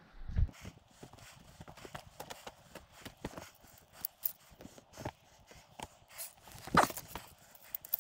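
Irregular hard clicks and knocks of a climber moving over rock on a via ferrata, with a sharper, louder knock near the end.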